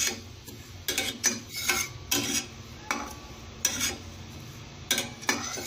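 Metal spatula stirring and scraping split mustard seeds across the bottom of a dry stainless steel pan as they are roasted on a low flame, in a series of irregular scrapes.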